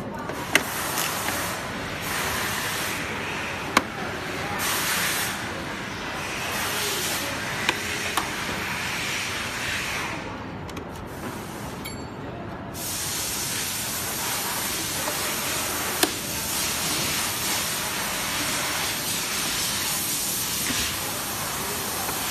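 Hissing, rustling noise of a projector's plastic casing being handled and slid over a foam sheet. The noise comes and goes in stretches, and a handful of sharp clicks and taps from the casing are heard.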